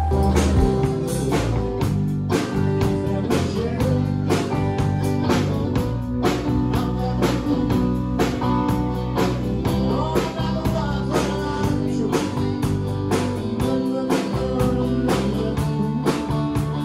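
Live band playing outdoors on a stage: electric and acoustic guitars, bass guitar and drum kit keeping a steady beat, with a man singing.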